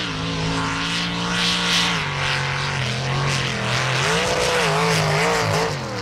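Mud-racing truck engine running hard: its note holds steady, drops about two seconds in, then revs up and down several times near the end, with a loud rushing hiss over it.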